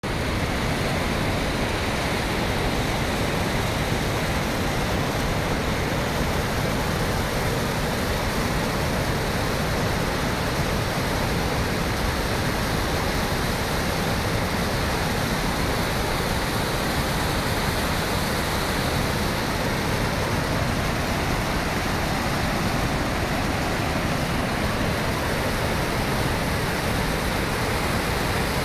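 Floodwater pouring over the spillway of the Sardar Sarovar Dam, a large concrete dam. The falling water makes a steady, unbroken rushing with no rise or fall.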